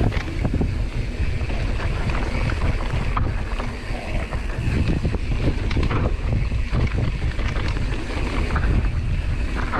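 Mountain bike riding down a dry dirt trail: wind buffeting the helmet camera's microphone over the rumble of the tyres, with frequent small rattles and clacks from the bike.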